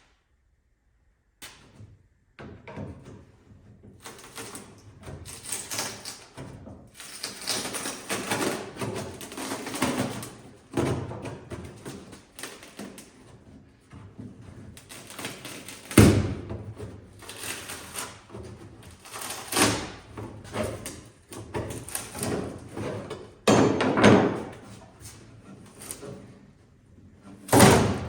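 Fiberglass rear quarter panel of a 1963 Corvette being chiselled and pried loose from its bonding strip: irregular cracking and scraping of the glued seam, with four loud knocks, the last near the end.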